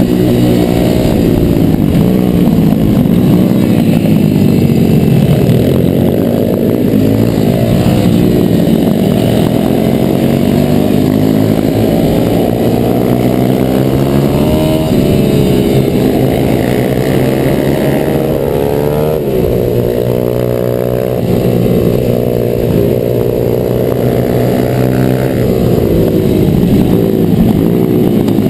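Single-cylinder four-stroke pit bike engine, a YX 140, heard from on the bike at racing pace, its revs repeatedly rising and falling as it accelerates out of corners and backs off into them.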